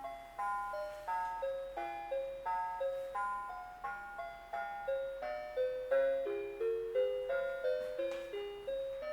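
A Christmas tune played as a simple melody of chime-like notes, each struck and quickly fading, about two to three notes a second, from a 1996 Christmas Fantasy Wonderland Skaters Pond musical decoration.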